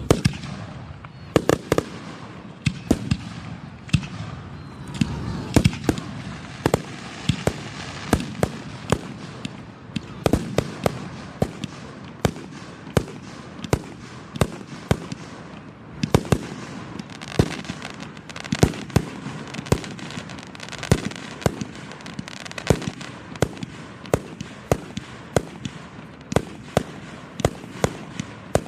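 Aerial fireworks display: shells bursting in a dense, irregular barrage of sharp bangs, about two a second, with a continuous noisy rumble between them.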